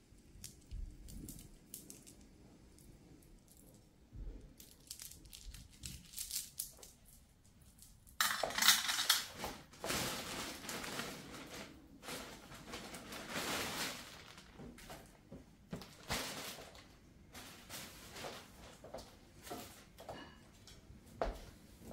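Items being handled: scattered clicks and clinks, then about eight seconds in a loud, dense crinkling and crackling, like packaging being crushed or opened, which thins back to occasional clicks near the end.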